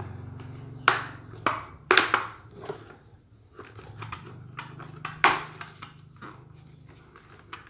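Handling noise from pulling the foam head liner out of a KYT full-face helmet: a string of sharp clicks and knocks from the liner's fasteners and the shell, with softer rustling between them. Three clicks come in the first two seconds and another loud one about five seconds in, over a steady low hum.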